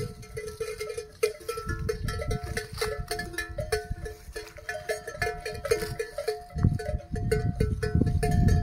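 Bells on grazing cows clanking irregularly as the cows move their heads, a few fixed bell notes struck over and over, with a low rumbling noise underneath at times.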